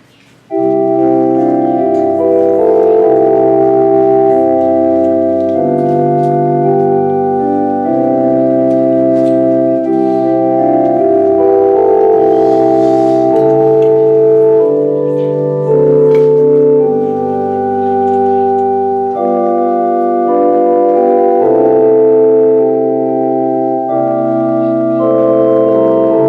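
Organ playing slow, held chords that start about half a second in and change every second or two.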